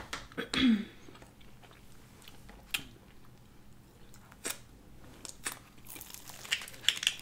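Close-miked eating sounds: chewing and crisp crunches of fried samosa pastry, with scattered sharp clicks and a cluster of crackly crunches near the end. A short vocal sound about half a second in is the loudest thing.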